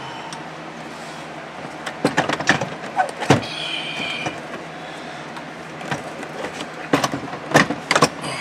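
Clicks, knocks and plastic clatter as the passenger airbag module and dash trim of a Ford Crown Victoria are handled and fitted into the dashboard. They come in two bunches, with a brief squeak after the first, over a steady low hum.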